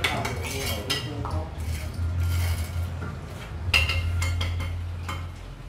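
A mason's trowel tapping and scraping against hollow clay bricks and mortar as they are laid in a wall: a series of sharp clinks and knocks, the loudest nearly four seconds in. A low steady hum runs underneath and stops near the end.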